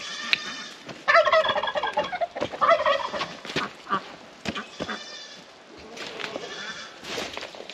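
Domestic turkeys gobbling, several quick warbling gobbles one after another.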